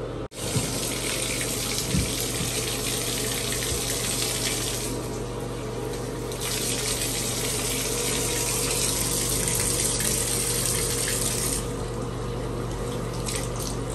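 Bathtub tap running, its stream pouring onto a cat in a mesh bathing bag and splashing into the tub. The water's hiss dulls twice for a second or so, over a low steady hum.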